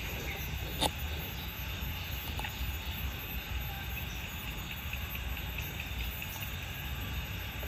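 Steady outdoor background noise with a low rumble, broken by one sharp click a little under a second in and a couple of faint ticks a second or so later.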